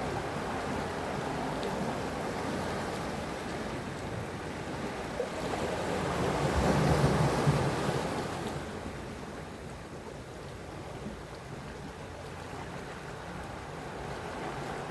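Sea waves washing on the shore: a steady wash of surf, with one wave swelling to its loudest about seven seconds in and then drawing back.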